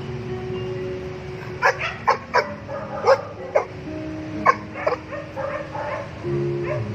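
Dogs barking and yipping in short, sharp bursts, about seven barks between a second and a half and five seconds in.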